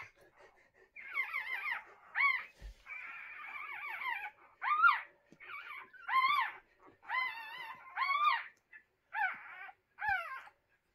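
Newborn whippet puppies crying: a dozen or so short, high-pitched whines, each rising and then falling in pitch, following one another with brief gaps.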